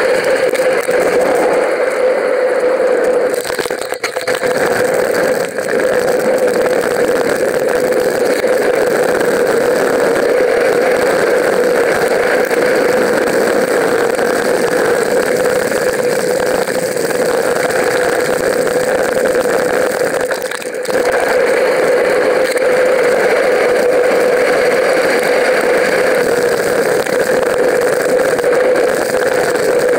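Steady wind and riding noise on a mountain bike's action camera as the bike rolls over tarmac and then dry grass, dipping briefly twice.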